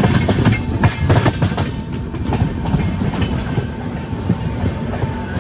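Express train running, its coach wheels clattering over rail joints: an irregular string of knocks over a steady rumble, thickest in the first two seconds.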